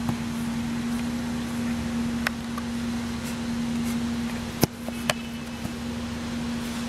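A motor running with a steady hum at one pitch, with a few sharp thuds of a football over it, the loudest about two-thirds of the way in.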